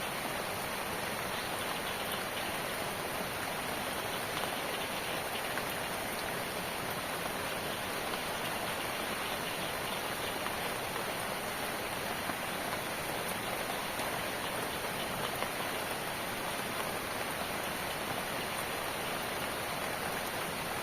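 Steady rain falling: an even hiss with now and then a faint tick of a single drop.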